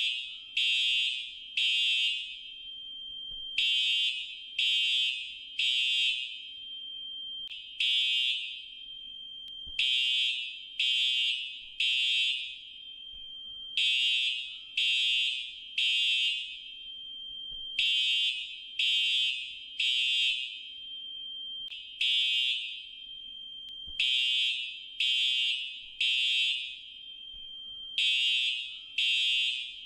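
Fire alarm sounding: high-pitched beeps in groups of three about a second apart, each group repeating roughly every four seconds, with a faint steady tone between groups. This is the temporal-three pattern that signals evacuation.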